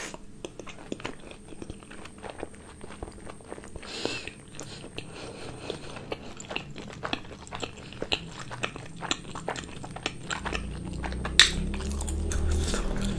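Close-miked chewing of a steamed momo dumpling with sauce: a steady run of wet mouth clicks and smacks. Near the end a single sharp tap stands out, and a low rumble comes in as a hand reaches across the board.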